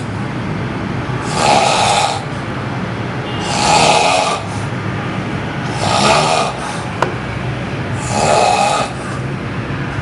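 A person snoring loudly: four long snores, one every two seconds or so, over a steady low hum, with a single sharp click about seven seconds in.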